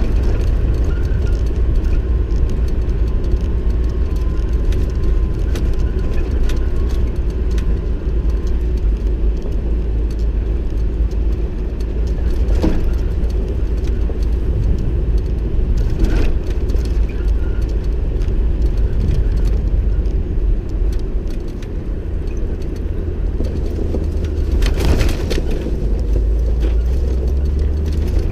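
Vehicle driving off-road on a dirt track: a steady low rumble of engine and tyres, with a few knocks or rattles over bumps, the longest one near the end.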